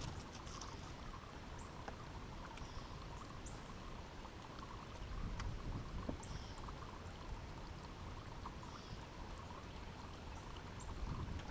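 Faint outdoor ambience: a steady low rumble, with scattered short high chirps and a few light ticks.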